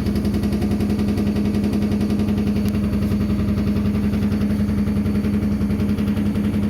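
Midea MWMFL070HEF front-loading washing machine spinning at high speed, giving a loud steady hum with a fast, even pulsing beneath it. The owner says this abnormal noise started after the motor and control board were replaced.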